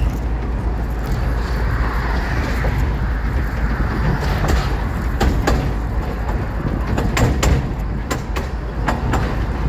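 Narrow-gauge train running, heard from an open carriage: a steady low rumble, with sharp clicks and knocks of the wheels on the track from about halfway through.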